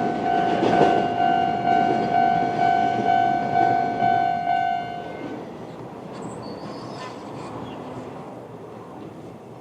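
Japanese level-crossing warning bell, the old-type standard electronic tone, ringing in a steady repeating pattern and cutting off about five seconds in. Under it, the rumble of a passing Kōnan Railway 7000-series electric train fades away.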